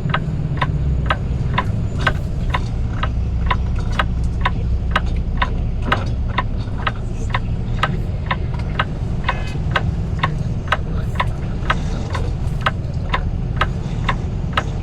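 Turn-signal flasher ticking steadily, about two ticks a second, inside a truck cab over the low, steady run of the truck's engine.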